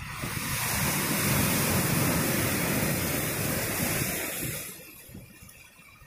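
Ocean wave breaking and washing in over shoreline rocks: a rush of surf that swells over the first second, holds, and dies away about five seconds in.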